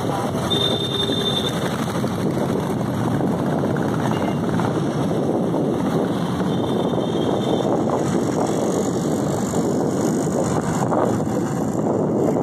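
Steady road and traffic noise heard from a moving vehicle in city traffic: a continuous, even rumble of engine and tyres with no breaks.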